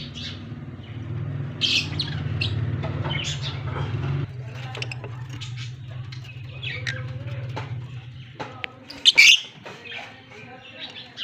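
Lovebirds chirping in short, sharp calls, the loudest a burst just after nine seconds in, over a steady low hum that stops shortly before it.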